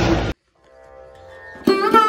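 A moment of wind and road noise from a motorcycle ride cuts off abruptly. After a short gap, instrumental background music fades in and becomes loud near the end, with sharp plucked notes over held tones.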